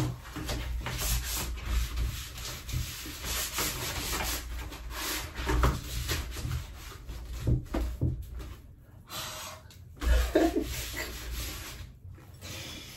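Close, irregular rubbing and rustling from hands handling things right by the microphone, with a few soft knocks and brief lulls around eight and twelve seconds in.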